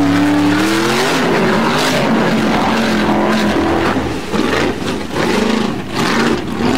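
High-horsepower formula off-road buggy engine at full throttle as the car skims across water. The revs climb in the first second, hold high, then drop and rise again several times in the second half as the driver lifts off and gets back on the throttle.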